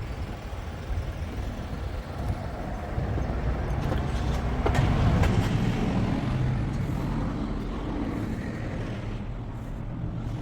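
Outdoor traffic noise: a rumbling vehicle passes by, swelling to its loudest about halfway through and then easing off, with a few sharp clicks.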